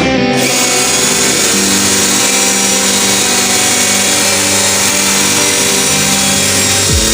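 Handheld electric power tool running steadily as it cuts or works wood, a constant high-pitched noise. Near the end a low tone falls, as a motor winding down would.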